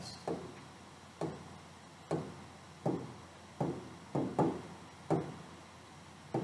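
Fingertip taps on the glass of an interactive touchscreen display, about nine short, sharp taps less than a second apart, as menu options are picked one after another.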